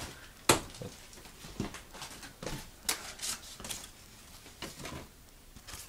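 Scattered sharp clicks and taps, about a dozen at irregular intervals, the loudest about half a second in.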